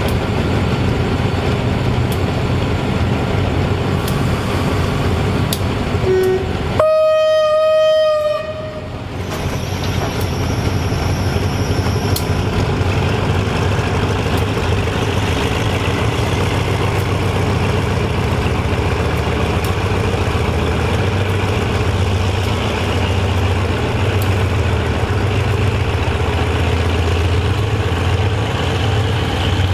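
GE-A class diesel-electric locomotive running with a steady low engine drone. About seven seconds in it sounds one long single-note horn blast lasting almost two seconds, just after a brief short toot. The engine grows louder in the second half as the locomotive moves off.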